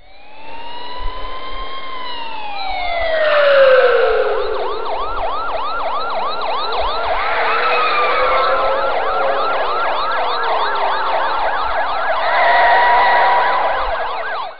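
Several police sirens sounding together. One wail slides down in pitch over the first few seconds, then fast yelping sweeps rise and fall over a steadier wail. The sound cuts off suddenly at the end.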